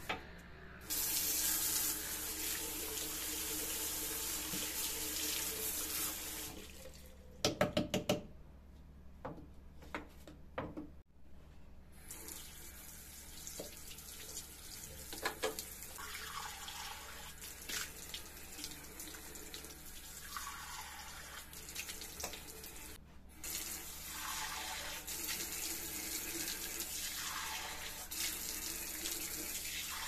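Water running from a single-lever mixer tap into a bathroom basin, with hands rinsing under the stream; the flow is strongest for the first few seconds. A quick run of sharp knocks comes about seven seconds in, then the water runs on, splashing over the hands.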